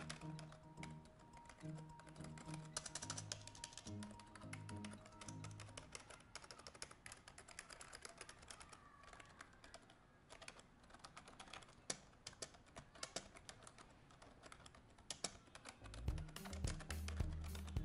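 Typing on a Logitech K120 membrane keyboard: a fast, irregular run of faint key clicks. Quiet background music plays under it for the first several seconds and again near the end.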